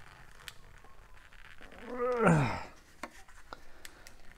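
A man's strained grunt, falling in pitch, about two seconds in, as he twists a paint activator lid that has set solid; light clicks and rubbing from the bottle and lid around it.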